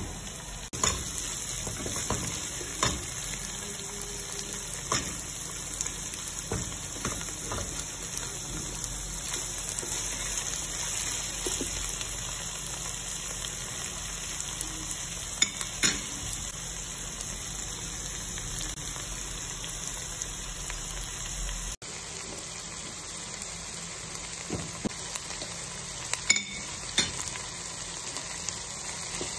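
Chopped bell peppers, onion and tomato sizzling steadily as they fry in a pot, with scattered light knocks of a wooden spoon against the pot as the vegetables are stirred.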